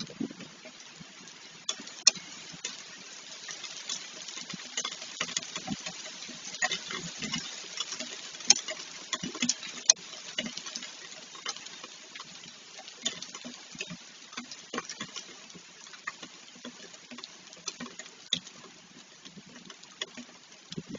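Heavy rain with small hail: a steady hiss of rainfall with many sharp ticks of hailstones striking, thickest in the first half and thinning out towards the end.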